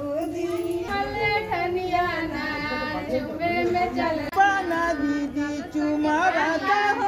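Women's voices singing a wedding folk song without accompaniment, in long held notes that slide between pitches.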